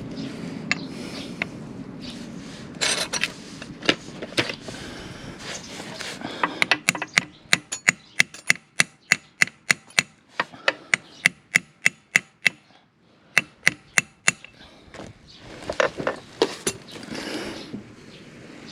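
Hammer blows driving a socket onto a rounded-off motorcycle oil drain bolt: a few scattered knocks, then a fast run of sharp strikes about three a second for some six seconds, and a few more after a short pause.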